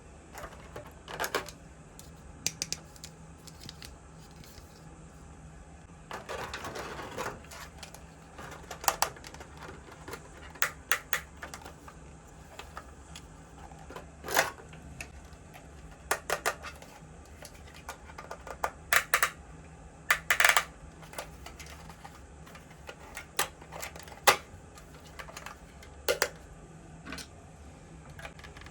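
Small plastic toy kitchen pieces and packaging being handled: scattered clicks and taps, some in quick runs, with a second of rustling about six seconds in.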